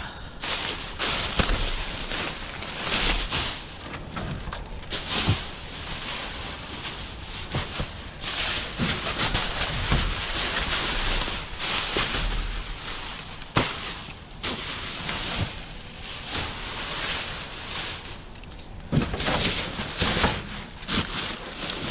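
Plastic trash bags rustling and crinkling as they are handled and shifted about in a dumpster, an uneven crackle with a few sharp knocks.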